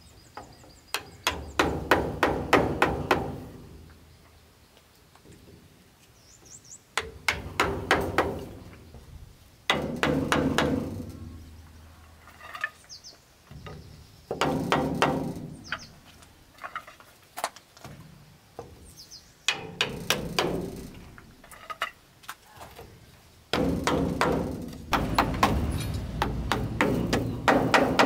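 Hammer striking wood in bursts of quick blows, several a second, with pauses of a few seconds between bursts.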